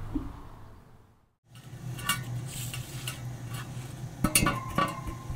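Metal parts clinking and tapping against each other, with one note ringing on briefly after a click near the end, over a low steady hum.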